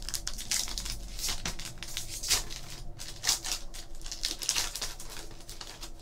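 Trading cards and plastic pack wrapping being handled, crinkling and rustling in quick, irregular strokes.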